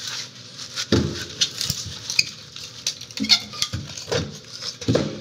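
A split piece of firewood being set into a woodstove's firebox on a bed of hot charcoal, with irregular knocks and scrapes and the clinking of charcoal chunks.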